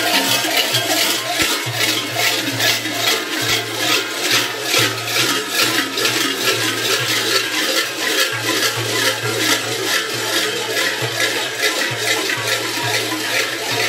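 Large bells worn by a Krampus troupe in fur costumes clanging and jangling in a steady rhythm, about two or three strokes a second in step with their walking.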